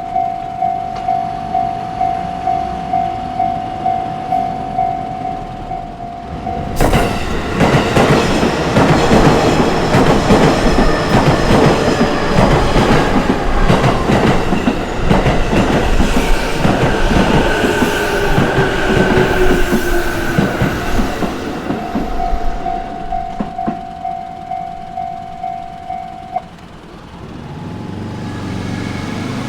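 Japanese railway level-crossing warning bell ringing in a steady repeating ding, about one and a half strikes a second. About seven seconds in, an electric train suddenly arrives and passes over the crossing with loud rumbling and clattering wheels for about fourteen seconds. The bell is heard again as the train clears and cuts off abruptly near the end.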